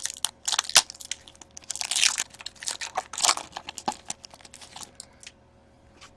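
Foil wrapper of an Upper Deck SP Authentic hockey card pack crinkling and tearing as the pack is opened, with the cards clicking and sliding as they are handled. It stops about five seconds in.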